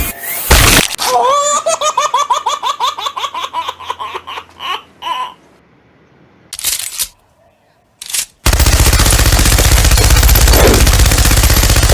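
High-pitched, rapid laughter running for about four seconds. After a short gap with two brief bursts, a loud, fast, continuous rattling noise takes over for the last few seconds.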